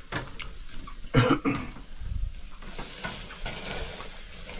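A short cough-like throat sound twice in the first second or so, then beef sizzling over an open fire on a small wire grill, a steady hiss that comes up about halfway through.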